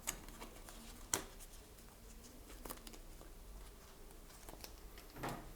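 Faint handling noises: a few short, sharp clicks, the loudest about a second in, and light rustling, as a 1 oz gold coin is handled in its packaging.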